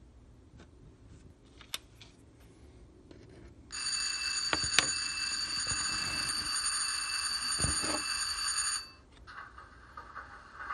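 Model locomotive with Stanton motor drives running under radio-throttle power: a steady high-pitched electrical whine with several pure tones starts abruptly about four seconds in and cuts off near nine seconds, with a few light clicks and a low thump during it.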